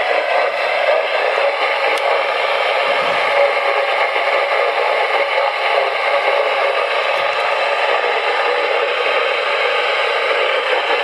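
Steady, loud hiss of static from an FM radio broadcast, with no clear tone or voice through it.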